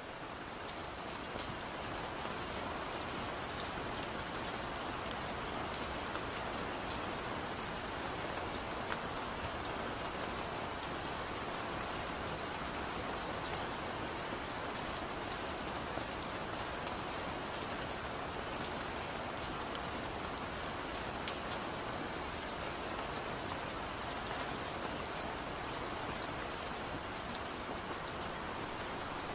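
Steady rain falling, with scattered sharp ticks of individual drops on top of an even hiss. It swells up in the first second or two, then holds level.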